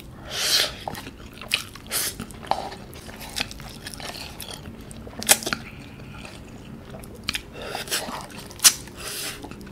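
A person chewing Samyang cream carbonara instant noodles topped with mozzarella cheese, close to the microphone: soft wet mouth sounds with scattered sharp smacks, the loudest about five and eight and a half seconds in.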